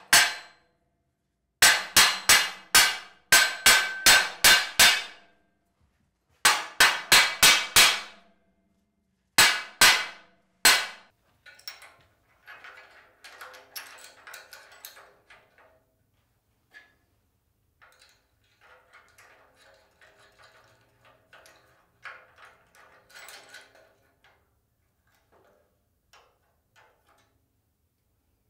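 Hammer blows struck through a wooden block against the side of a steel welding table, in three quick runs of ringing knocks. The last stretch holds quieter metal clinks and ticks from a wrench working bolts inside the table frame.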